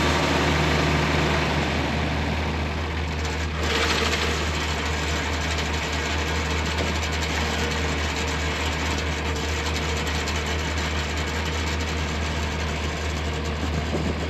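John Deere 4020 tractor engine idling steadily, powering a hydraulic post driver. A single short knock sounds about three and a half seconds in.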